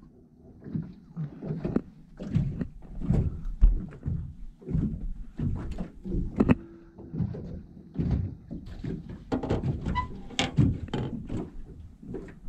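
Irregular dull thunks and knocks, a few sharper clicks among them, from rod, reel and gear handled against an aluminum jon boat during a fight with a large fish.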